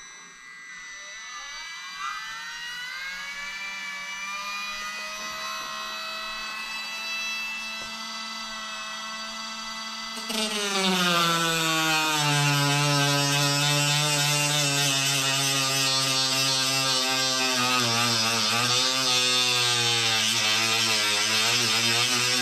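Cordless rotary tool with a cutoff wheel spinning up and running free with a steady whine. About ten seconds in it gets louder and its pitch drops as the wheel bites into a black trim strip, cutting under load with a grinding hiss, the pitch wavering near the end.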